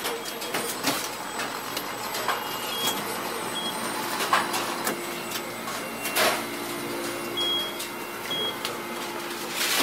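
Busy fast-food kitchen ambience: a steady background hiss with scattered clatter of utensils and dishes and four short, high electronic beeps from kitchen equipment. A steady low hum joins about four seconds in.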